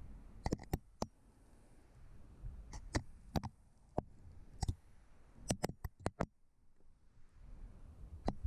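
Sharp, irregular clicks and knocks, about fifteen of them, some in quick clusters, as a chimney inspection camera moves through a sooty brick flue and knocks against its walls.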